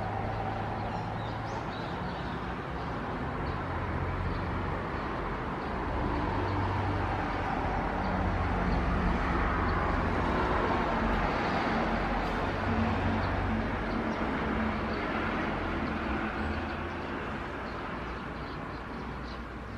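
Jet airliner, an Embraer E175 with twin turbofans, at takeoff power climbing out: a steady rumble that grows louder to a peak about halfway through, then slowly eases.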